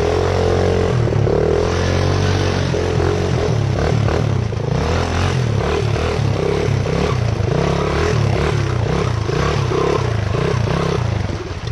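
Honda XR100 single-cylinder four-stroke engine running hard while the dirt bike ploughs through deep water, with splashing, then faltering and cutting out near the end as water floods it.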